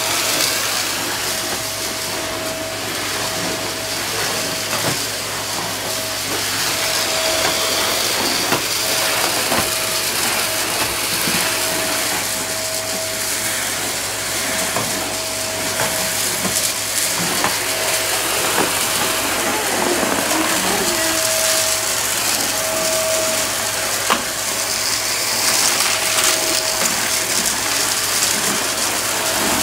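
Vacuum cleaner running steadily with a constant motor whine. Scattered clicks and crackles come from debris rattling up the nozzle.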